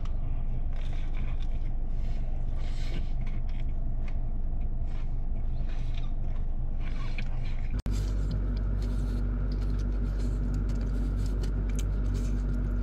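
Steady low hum like a car idling, heard from inside the cabin, with scattered rustling and scraping as the sandwich is handled. About eight seconds in, the hum cuts for a moment and comes back steadier, with a clear low drone.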